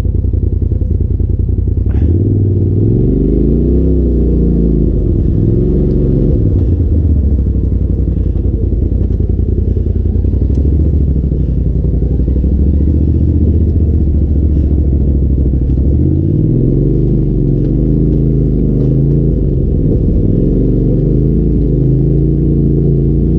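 Polaris RZR side-by-side's engine running on a trail ride, its pitch rising and falling as the throttle is worked and steadier in between, with a few faint knocks.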